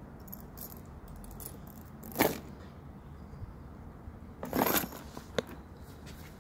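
Handling noise from a leather handbag's metal hardware: short sharp metallic clinks, the loudest about two seconds in, then a brief jangling cluster near five seconds and one more click.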